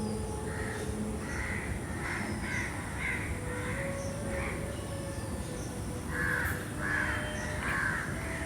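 Crows cawing repeatedly, a string of short harsh calls about two a second, with a louder run of calls about six seconds in.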